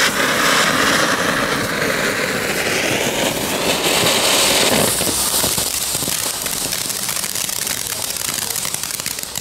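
Category 1 ground fountain firework spraying sparks with a loud, steady hiss; about five seconds in the hiss weakens and breaks into crackling as the fountain burns down.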